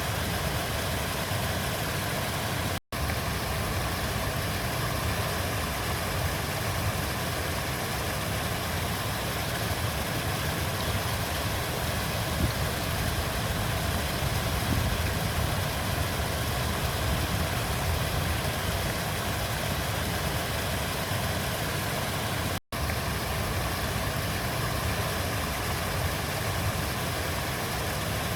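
River water flowing: a steady, unbroken rush with a deep low rumble, cut by two very brief dropouts, about three seconds in and again about twenty-three seconds in.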